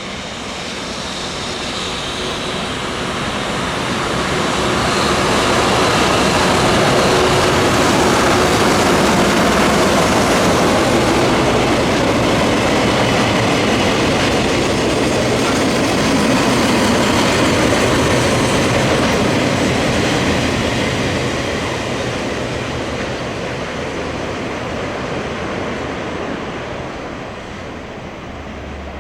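A freight train of tank wagons hauled by a JR Freight EH500 'Kintarō' electric locomotive running through the station: a loud, steady rumble of wheels on the rails that builds over the first few seconds, holds, then eases off as the wagons go by.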